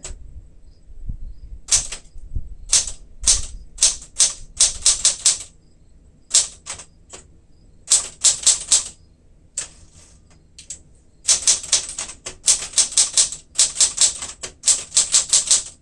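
A 1967 Smith-Corona Super Sterling manual typewriter being typed on: sharp keystrokes come in uneven runs with short pauses between. The longest, fastest run of strokes comes near the end.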